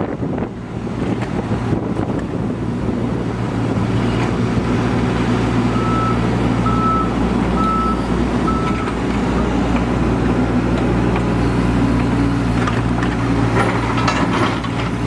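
Liugong 915 excavator's diesel engine running steadily, with its travel alarm beeping four times midway and a few knocks near the end.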